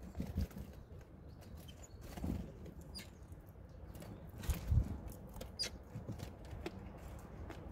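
Great tits coming and going at a wooden feeder tray: wing flutters and soft thumps as they land, quick taps of feet and beaks among the seeds, and a few brief high call notes.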